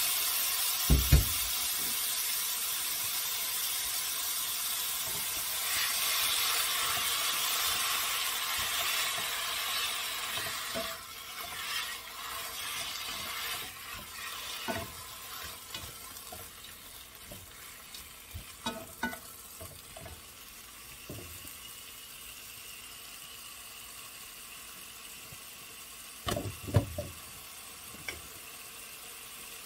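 Raw pork pieces sizzling as they sear in a hot pot, loud for the first ten seconds or so and then quieter, while a silicone spatula stirs and scrapes them. Two sharp knocks about a second in and a short cluster of knocks near the end.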